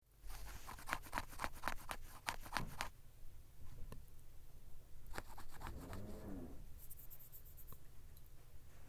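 A roly-poly tumbler toy being knocked about by a kitten: a quick run of clicks and rattles for about three seconds, then a few more knocks and a short wavering tone around the middle.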